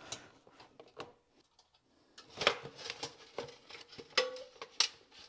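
Scattered light clicks and metallic clinks of screws and Instant Pot base parts being handled with a screwdriver while the base ring is removed.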